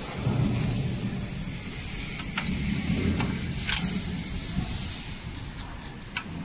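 Steady machinery hum with a high hiss, broken by several sharp metal clicks from the cutter tooling of a nail-clipper-making machine as it is adjusted by hand, with a quick run of clicks near the end.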